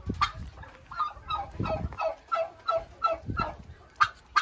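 Poultry calling a rapid run of short, falling notes, about four a second, with a few sharp knocks near the end.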